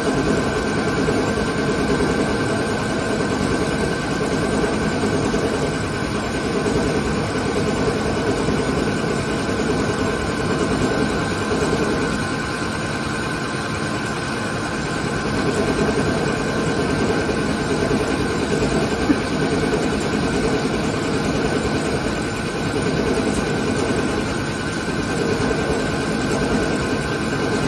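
ALCK6163X1500 CNC lathe running steadily, turning a workpiece under flood coolant: a continuous mechanical drone of spindle, cutting and coolant spray, with faint steady high tones.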